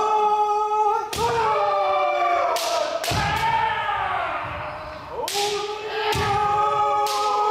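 Kendo practice: several kendoka's long, drawn-out kiai shouts overlapping, cut through by a string of sharp cracks from bamboo shinai strikes and stamping steps on the wooden floor, with a ringing echo after each hit.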